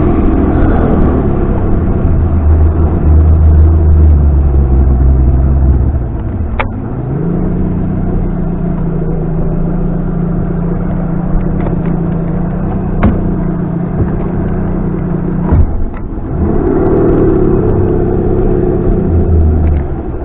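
Outboard boat motor running under throttle, dropping back to a steady idle about six seconds in and holding it without dying, then throttling up again near the end before easing off.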